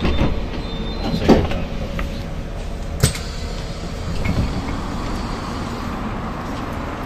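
Interior of a Charleroi metro tram: a steady low running rumble with a couple of sharp clunks, then the door mechanism working as the folding passenger doors open at the platform, about four to six seconds in.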